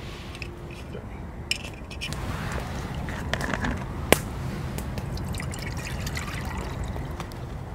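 Gas hissing steadily from a camping gas stove running on a supermarket gas cartridge through an adapter, starting about two seconds in, with one sharp click about four seconds in.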